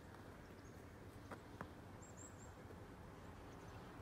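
Near silence: faint outdoor ambience, with two faint clicks and a few short, faint high chirps about two seconds in.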